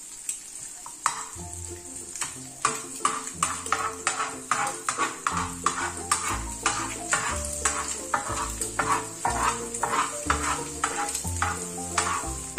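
A metal spoon scraping and stirring scrambled eggs and vegetables in a hot black wok, two or three quick scrapes a second, over the steady sizzle of frying oil.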